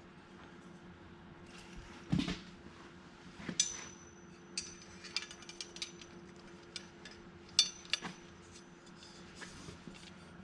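Small metal parts clinking and tapping as bolts and washers are handled and fitted to a dirt-bike radiator guard: a duller knock about two seconds in, then scattered light clicks, two sharper clinks ringing briefly, over a faint steady hum.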